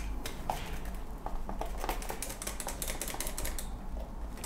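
Hand-operated metal cup flour sifter being worked, giving a rapid, steady run of light metallic clicks as flour is sifted through it.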